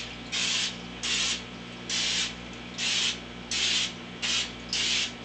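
Aerosol can of spray vegetable oil hissing in about seven short squirts, roughly one a second, onto the inside of a cast iron wok to coat it for seasoning.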